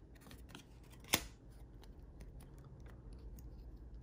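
Pokémon trading cards being handled, with faint ticks as they slide against each other and one sharp click about a second in.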